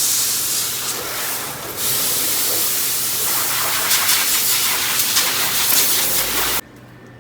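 Compressed-air blow gun hissing in a long blast. It eases briefly about two seconds in and cuts off suddenly near the end, as the engine air filter is blown clean.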